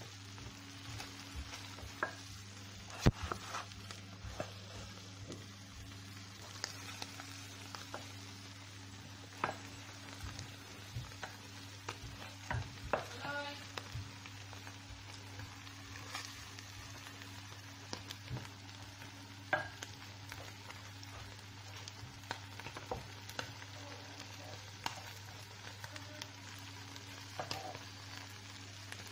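Wooden spoon stirring and stir-frying cooked rice into chicken in tomato sauce in a steel pan, with irregular scrapes and knocks against the pan over a light sizzle and a steady low hum; the sharpest knock comes about three seconds in.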